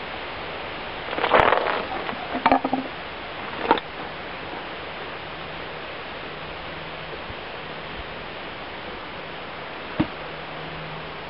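Irvine 120 model airplane engine being hand-propped: three short bursts in the first four seconds as the propeller is flicked over without the engine catching, then a single sharp knock near the end.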